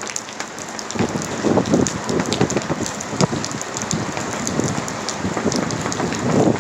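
Heavy thunderstorm rain beating on a car as it is driven, a dense spatter of drops that grows heavier about a second in.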